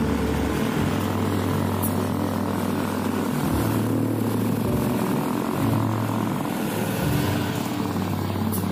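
Diesel engine of a log-laden Mitsubishi Canter truck running steadily as it crawls along a rough, wet road.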